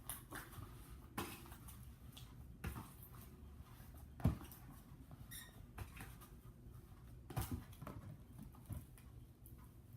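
Hands kneading and squishing sticky slime mixed with foam beads, giving irregular small pops and crackles, with one brief squeak a little past the middle.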